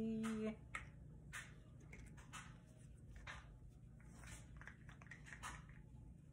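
Faint, soft scrapes and rustles, roughly one or two a second: a popsicle stick working acrylic paint out of a small plastic cup held in gloved hands.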